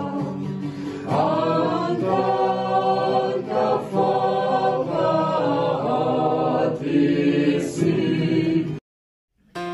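A small group singing a hymn together without accompaniment. The singing cuts off abruptly about nine seconds in.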